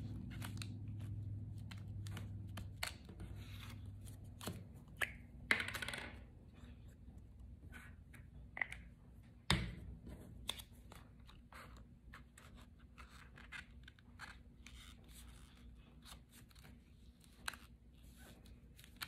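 Cardstock pieces being handled and pressed into place: soft paper rustles and scrapes with scattered light clicks, and one sharper knock about nine and a half seconds in.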